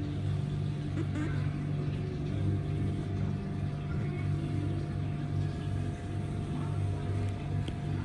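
Steady low machine hum with a slow pulsing in it and a faint constant whine above it.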